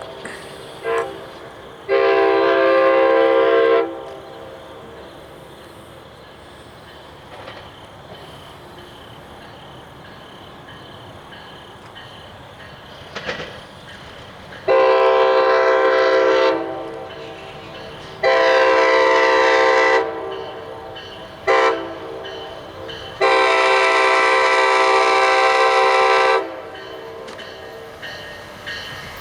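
A MARC commuter train's multi-chime air horn, blown as a horn show. There is a brief toot and a long blast at the start. After a stretch of low train rumble comes the long, long, short, long crossing pattern.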